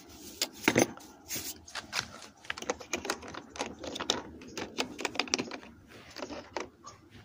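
Sockets and small hand tools clicking and clinking, set one after another into their tool-kit case in a quick, irregular run.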